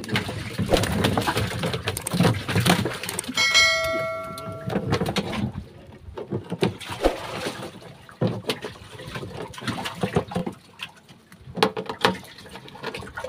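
Water splashing and sloshing with knocks and rattles as a wet wire-mesh fish trap is shaken and worked over a boat's fish hold to tip grouper into it. About three and a half seconds in, a single metallic ring fades out over about a second; the rest is quieter scattered knocking of the trap against the hatch.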